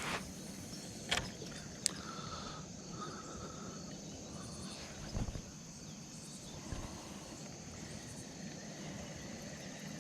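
Quiet outdoor ambience with a steady high insect drone, broken by a few sharp clicks in the first two seconds and a soft thump about five seconds in.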